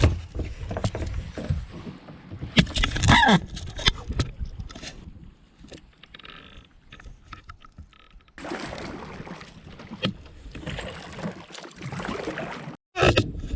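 Kayak on a creek: scattered knocks and clicks of a paddle and gear against the hull, with water noise, a brief bending squeak about three seconds in, and a steady hiss of water or moving through it in the second half.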